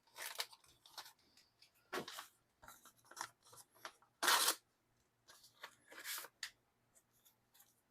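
Handling of plastic and paper packaging: short irregular bursts of rustling and crinkling as a photo card is taken out and turned over. The loudest burst comes about four seconds in.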